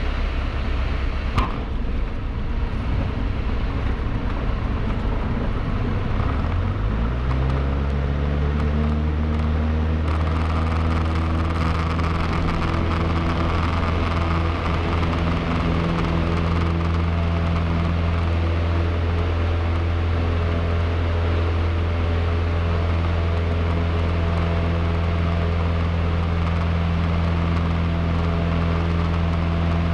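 Cessna 152's four-cylinder Lycoming engine heard from inside the cockpit. Its revs climb over about two seconds, some six seconds in, as the throttle goes to full power for the takeoff roll, then hold steady. A single sharp click comes just over a second in.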